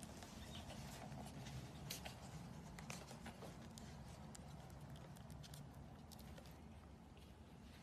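Near silence: a low room hum with faint, scattered small clicks and rustles.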